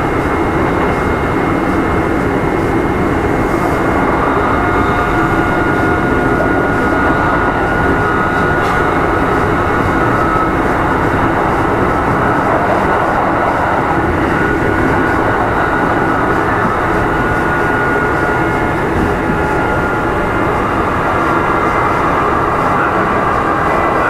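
Kintetsu 2610-series electric train car Mo 2614 running at speed, heard from inside: a steady, loud rumble of wheels on rail with a high, steady whine.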